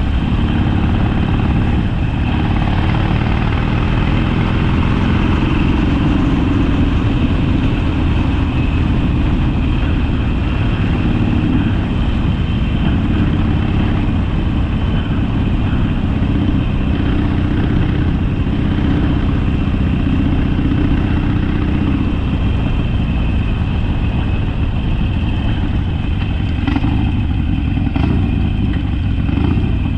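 Harley-Davidson Sportster's air-cooled 45-degree V-twin engine running steadily under way, its note shifting a little with the throttle.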